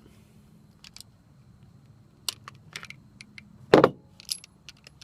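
Metallic clicks and rattles of a Kel-Tec PF9 9mm pistol being worked by hand to clear a failure to extract, with one louder clack a little before the end, over a faint steady low hum.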